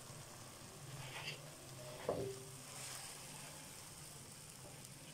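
Faint sizzling of glazed orange chicken in a hot nonstick wok just taken off the flame, with two brief scrapes about one and two seconds in as the chicken slides out of the tilted wok onto a paper plate.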